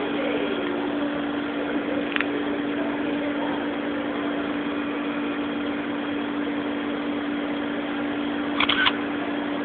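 Steady mechanical hum under an even hiss, with a sharp click about two seconds in and a quick double click near the end.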